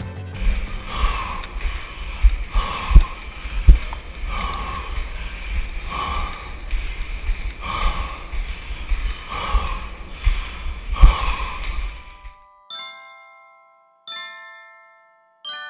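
A stair racer's heavy breathing in regular swells about every second and a half, with sharp thuds of footfalls on the stairs, heard close up. After about twelve seconds it cuts out and slow glockenspiel-like chimes begin, a ringing note every second and a half or so.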